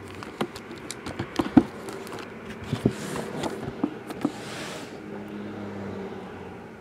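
Hands handling a shrink-wrapped cardboard trading-card box: scattered light taps and knocks, with the plastic wrap rustling against the fingers from about three to five seconds in.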